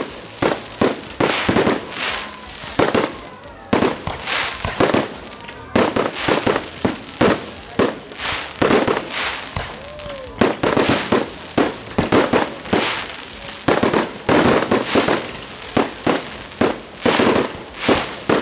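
Fireworks display: aerial shells bursting in quick succession, sharp bangs coming several a second with only brief lulls.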